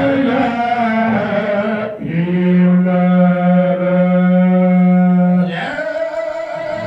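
A man chanting an Islamic religious chant into a microphone, his voice gliding at first, then holding one long steady note for about three seconds before moving on more softly.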